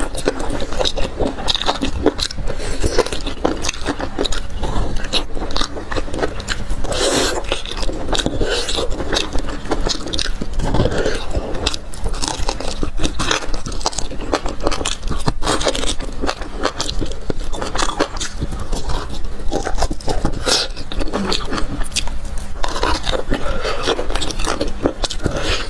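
Close-miked wet eating sounds: sucking, slurping and chewing at the marrow of a braised marrow bone held to the mouth, a dense run of smacking clicks that keeps going throughout.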